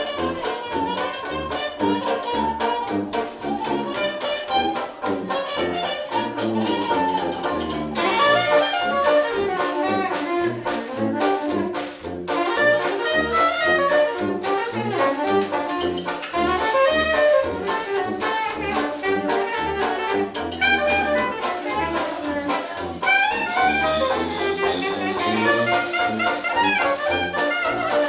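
Live New Orleans-style trad jazz band playing: a sousaphone bass line, banjo and washboard keeping a steady beat, and clarinet and trumpet on the melody.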